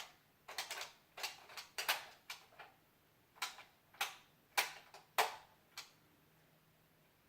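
Toy Nerf blaster clicking about a dozen times at an uneven pace as its trigger and priming mechanism are worked, with no darts going off: the blaster is jammed.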